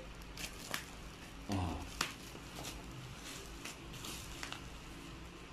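Plastic bubble wrap rustling and crinkling as it is cut with scissors and pulled open by hand, with scattered sharp clicks and snips.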